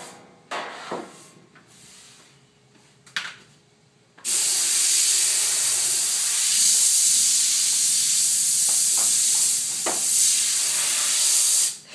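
Compressed air hissing out of an air compressor's line in one long, steady blast that starts abruptly about four seconds in and cuts off sharply near the end.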